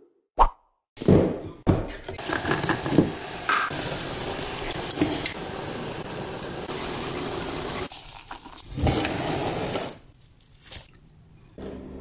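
Metal spoon and ceramic mug clinking and scraping while instant coffee is made, with a few sharp knocks at first and a stretch of steady rushing noise in the middle.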